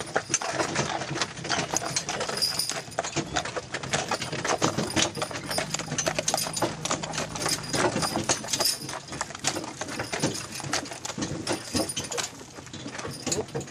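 Hooves of a harnessed horse pulling a cart, clip-clopping on a gravel track, amid a dense, continuous clatter of knocks.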